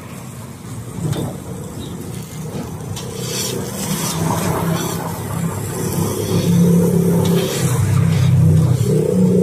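A car's engine running on the street, growing steadily louder over the second half as the vehicle draws near.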